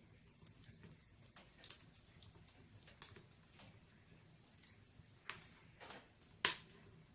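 Wood fire in a fireplace crackling: about five sharp pops from the burning logs over a faint steady background, the loudest near the end.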